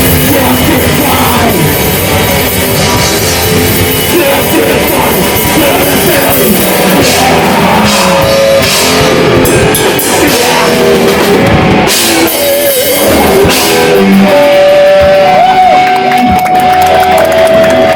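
A metal band playing live at full volume, with distorted guitars and drum kit. In the last few seconds the playing thins out to a few steady, held tones.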